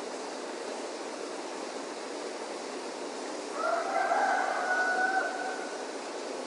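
A rooster crowing once, a single long call of about two seconds starting about halfway through, over steady background noise.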